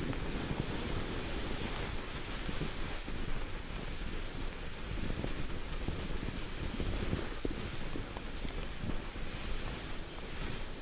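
Wind buffeting the microphone during a downhill ski run, over a steady hiss of skis sliding on snow.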